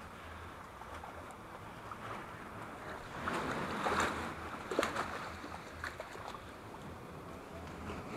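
Sea waves washing against shore rocks, swelling for a moment about three seconds in. A few sharp knocks and clicks come near the middle.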